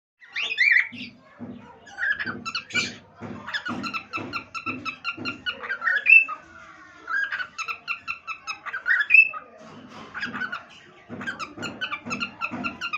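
Pet cockatiel whistling a repeated tune of short quick notes, several a second. Each phrase of about three seconds ends on a higher, louder note.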